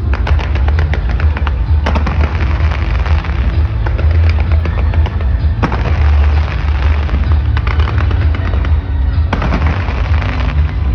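Large New Year fireworks display exploding in repeated volleys of rapid crackles over a continuous low rumble of bursts.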